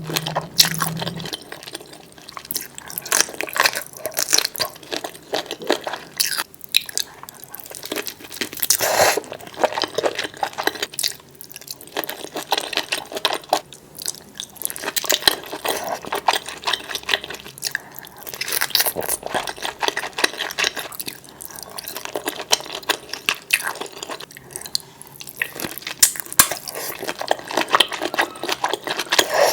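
Close-miked eating of sauce-covered seafood boil: wet chewing, smacking and slurping in quick, irregular clicks and crackles.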